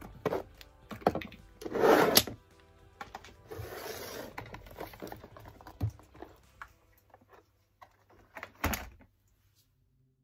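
Plastic toiletry bottles and tubes being taken out of a drawer by hand, knocking against each other and the drawer: irregular knocks and rattles, loudest about two seconds in, with a rustling stretch around four seconds and a last knock near the end.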